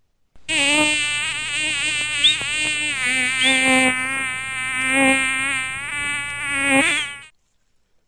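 A buzzing insect, like a fly, drones for about seven seconds with its pitch wavering up and down, then stops abruptly.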